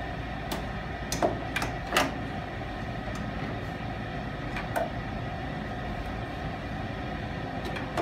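Short metallic clicks and taps of a hand tool on the gas furnace's sheet-metal parts as the collector box is worked loose, about six in all and loudest a little after one and two seconds in, over a steady low hum.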